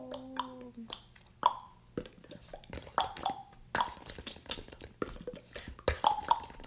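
A quick, irregular series of clicks and plops, several a second, with a few louder drop-like plops standing out.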